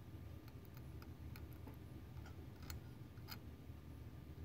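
Faint, irregular light clicks of metal tweezer tips touching the spring pins of an LGA 771 CPU socket while bent pins are straightened, over a low steady hum.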